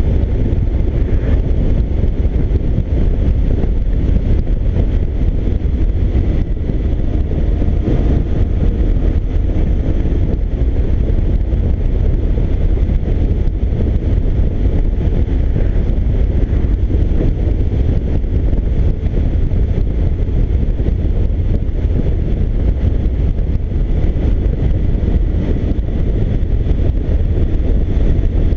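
Motorcycle riding at a steady cruise: the engine running evenly under wind noise on the microphone, a dense, unbroken low rumble.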